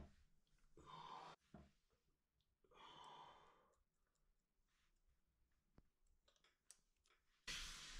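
Mostly near silence: two faint, short breath-like hisses and a few tiny metallic clicks as needle-nose pliers work at the pad pin of a motorcycle's Brembo front brake caliper. A much louder noisy sound starts near the end.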